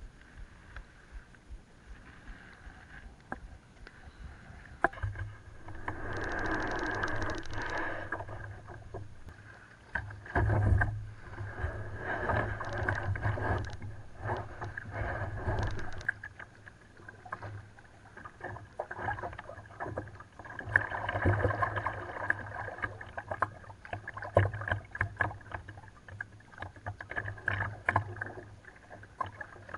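Kayak being paddled: double-bladed paddle strokes splashing and dripping in the water in irregular swells, with sharp knocks and clicks now and then against the plastic sit-on-top hull.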